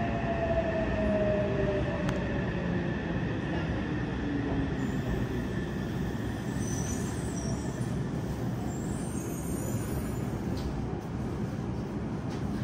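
Interior sound of a Yokohama Municipal Subway 3000R train braking into a station: the Mitsubishi IGBT-VVVF inverter's faint whine falls in pitch in steps over the rumble of the wheels, and the car settles to a stop near the end.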